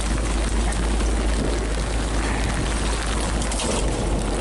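Steady rushing noise of wind and rain aboard a fishing boat in stormy seas, with a constant low rumble of wind buffeting the microphone.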